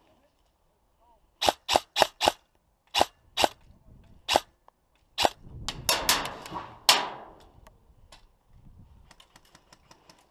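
Airsoft gun firing single shots, about eight sharp cracks over four seconds, then a louder noisy stretch with a few more shots.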